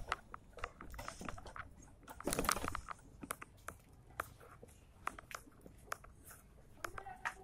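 Irregular light clicks and taps, several a second, with a louder scuffing burst about two and a half seconds in.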